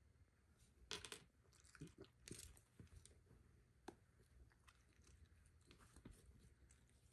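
A Shiba Inu nibbling and licking at its own leg and paw fur in reaction to having its belly tickled: faint, irregular wet clicks and crackles, loudest about a second in and again around two and a half seconds in.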